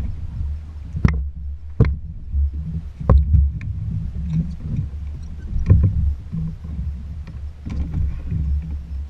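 Jet ski sitting on choppy sea: a constant, uneven low rumble with about five sharp knocks against the hull.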